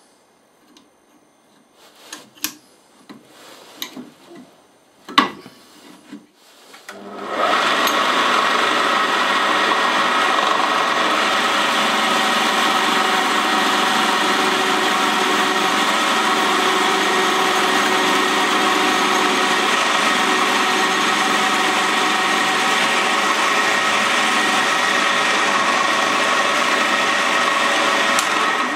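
A few clicks and knocks as the workpiece is set in the vise, then about seven seconds in a bench drill press starts and runs steadily with a constant hum, its small twist bit drilling into a 15 mm iron block, before it winds down right at the end. The drive belt is set slack so that it slips before the bit can break, yet the bit still cuts the iron.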